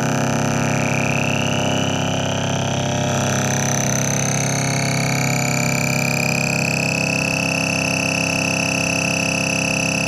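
Synthesized oscilloscope-art signal of mixed sine, sawtooth and square waves, heard as a dense, distorted electronic drone of many steady tones, with a few higher tones gliding slowly upward. This is the stereo signal that draws a field of moving mushroom shapes on an XY oscilloscope.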